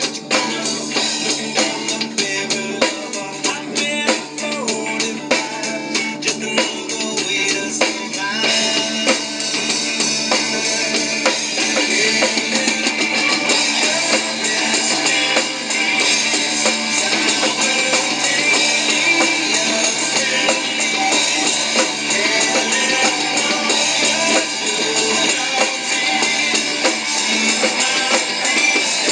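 Drumming on an electronic drum kit, fast sticking on pads and cymbal, played along with a backing song.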